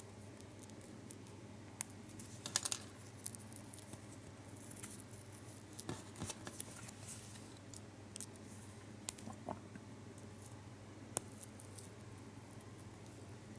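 Small, irregular crinkles and clicks of a foil-backed Lotte Xylitol gum wrapper being folded by fingers and pressed with a wooden toothpick at close range. The loudest is a quick cluster of crackles about two and a half seconds in, over a faint low hum.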